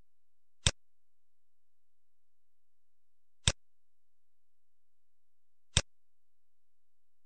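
Three sharp computer mouse clicks, about a second in, near the middle and near the end, with near silence between them.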